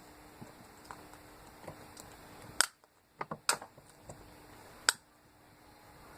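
A few sharp plastic clicks and taps from handling a glue container while trying to get the glue out. The loudest come about two and a half seconds in and again near five seconds, with a quick run of smaller clicks between them.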